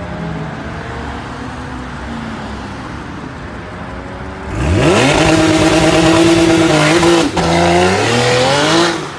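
Porsche 911's flat-six engine idling, then, about four and a half seconds in, revving up hard as the car launches from a standstill. The revs climb steeply and hold high, dip briefly at a gear change, climb again and fade as the car pulls away.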